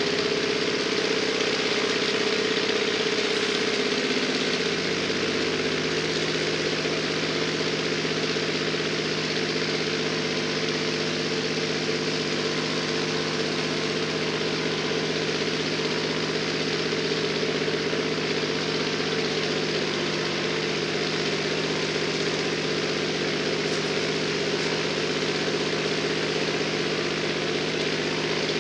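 The Pratt & Whitney radial engine of a restored A6M3 Zero Model 22 fighter running steadily on a ground run, the aircraft chocked and stationary.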